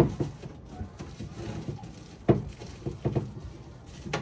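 Household items being handled and set down, giving a few light knocks and clatters, the loudest about two seconds in.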